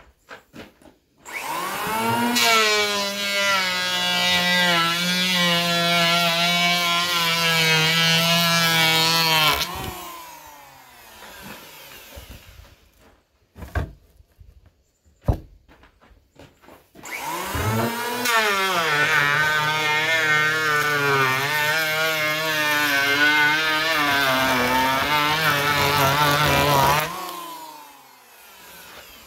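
Handheld electric planer making two long passes along a rough-sawn 2x4: each time the motor spins up with a rising whine, its pitch wavers and dips as the blades cut, then winds down at the end of the pass. A few sharp knocks between the two passes.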